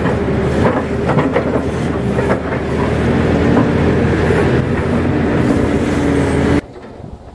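Crawler excavator's diesel engine running under load, with hydraulics working the bucket through wet mud and scattered knocks and clanks from the bucket and arm. Near the end the sound drops off suddenly.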